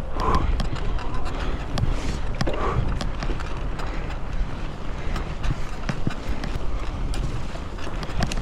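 Twitter Leopard Pro mountain bike riding over a wet forest dirt trail: a steady rumble of tyres and wind on the microphone, broken by many quick clicks and rattles from the bike over bumps.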